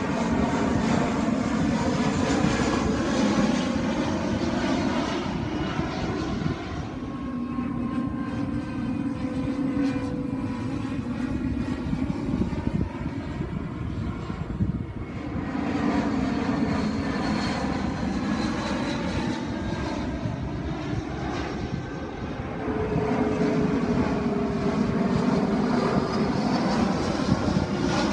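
Airplane engines running as an aircraft passes: a continuous loud rumble with slowly sliding whining tones, easing off in the middle and swelling again later.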